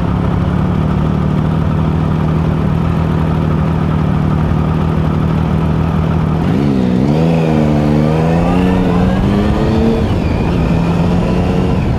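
Triumph Sprint ST 1050's three-cylinder engine idling steadily in gear, heard from a helmet camera. About six and a half seconds in it revs as the bike pulls away, the pitch climbing for a few seconds, then dropping at a gear change near the end.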